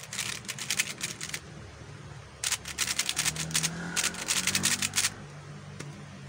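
YJ Guanlong Plus plastic 3x3 speedcube being turned fast, its layers clacking in three quick runs of about a second each.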